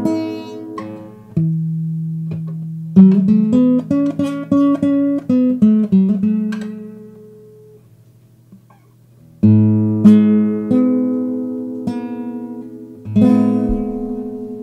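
Background music on acoustic guitar: chords struck and left to ring out, with runs of quick plucked notes. The music fades almost away about eight seconds in, then a new chord comes in about a second and a half later.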